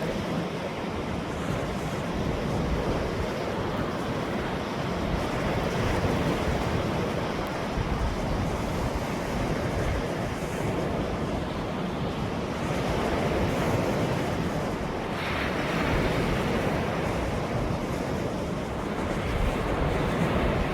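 Ocean waves rushing and washing in continuously, swelling and easing slowly, with one brighter surge of breaking surf about three quarters of the way through. Wind buffets the microphone with a low rumble.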